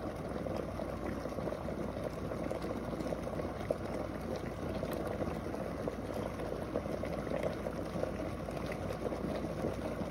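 Stainless-steel electric kettle heating water to the boil: a steady bubbling rumble.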